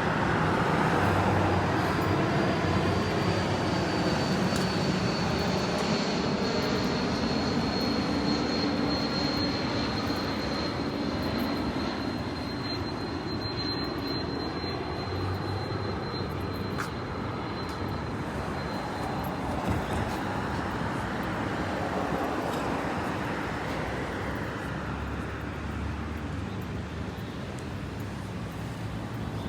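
Jet airliner passing overhead: a broad engine roar, loudest at first and slowly fading, with a thin high whine from the engines that drifts slightly down in pitch before dying away.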